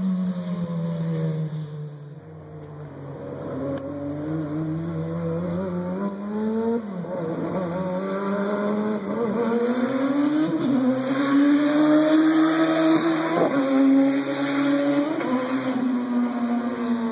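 Turbocharged Suzuki Hayabusa inline-four engine in a sandrail, driving with its revs rising and falling several times. It grows louder as it comes closer and is loudest a few seconds before the end.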